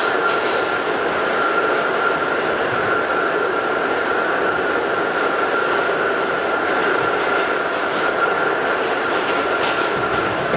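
Westinghouse-Amrail R68 subway car heard from inside, running at speed on an express run: a steady loud rumble of wheels and rails with a constant high whine, and a few faint clicks.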